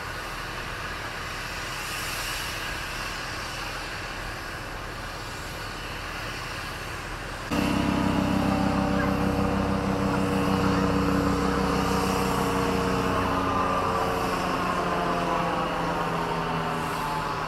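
Steady outdoor background noise, then about seven seconds in a louder, steady vehicle engine hum sets in, with a higher whine above it that slowly falls in pitch.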